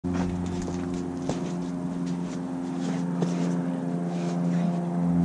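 A steady, low mechanical hum, engine-like, holding one pitch throughout, with a couple of light knocks about a second in and again a little past three seconds.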